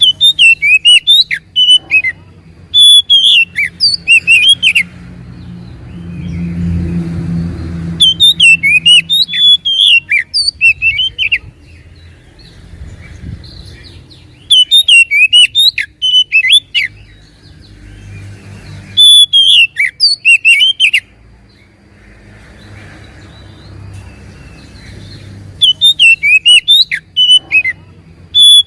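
Oriental magpie-robin (kacer) singing in loud bouts of about two seconds each, made of rapid sweeping whistled notes and sharp high chips. There are six bouts, with pauses of a few seconds between them.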